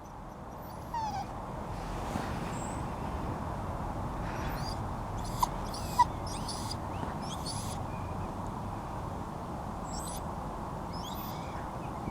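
Small birds chirping now and then over a steady outdoor background hiss, with a few brief faint squeaks.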